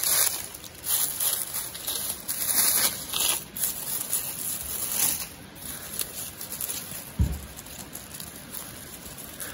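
Dry leaf litter rustling and crinkling as a hand brushes through it, in irregular strokes that are busiest over the first few seconds, with a single low thump about seven seconds in.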